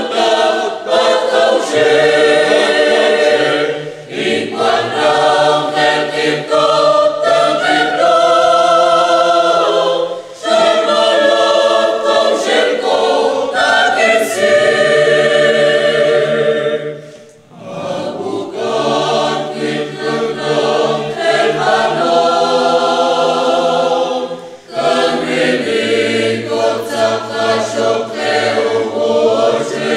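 Mixed choir of men's and women's voices singing a hymn in K'iche' Maya, in long phrases with brief breaks for breath between them.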